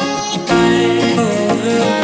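Background music: a song with guitar and singing, getting louder about half a second in.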